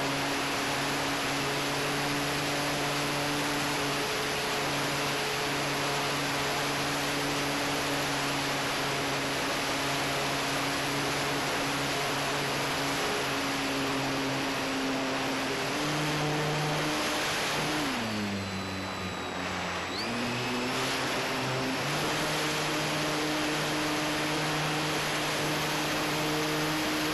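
Electric motor and propeller of a Durafly Tundra RC plane running steadily, heard from on board over a hiss of rushing air. About eighteen seconds in the throttle comes back and the pitch falls, then rises again about two seconds later.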